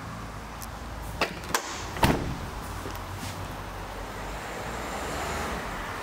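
Three sharp knocks a little over a second in, the last and loudest ringing briefly, over a steady low hum.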